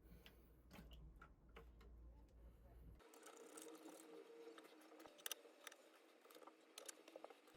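Near silence with faint, scattered small clicks and taps.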